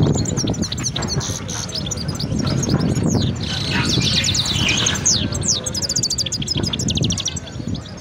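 Many small caged songbirds chirping and trilling at once, with a burst of fast rapid-fire trills about six to seven seconds in, over a steady low background rumble.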